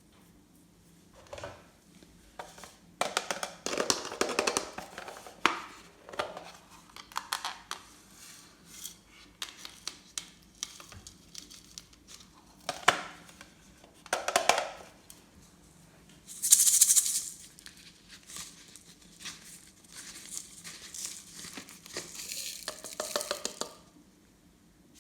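Glossy slime being squished, poked and folded by hand, giving irregular sticky crackles and small pops, with a brief hiss about two-thirds of the way through.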